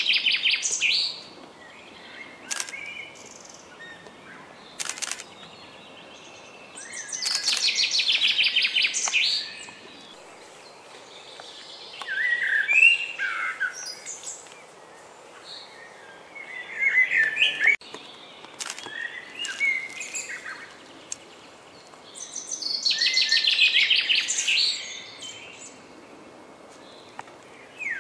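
Songbirds singing in woodland: a rapid, high trilling song of a couple of seconds repeats several times, with shorter, differently shaped phrases from another bird in between.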